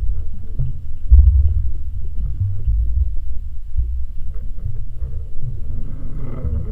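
Low, uneven underwater rumble of moving water heard through a submerged camera. A faint wavering whine comes in near the end.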